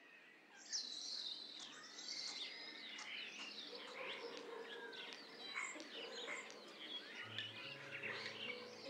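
Many birds chirping and singing together in short, overlapping calls and trills. Soft music with low held notes comes in about seven seconds in.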